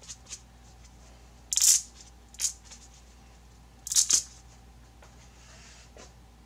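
Three short rustling, scraping handling noises from small parts and materials being worked by hand, the loudest about a second and a half in and again around four seconds, over a faint steady hum.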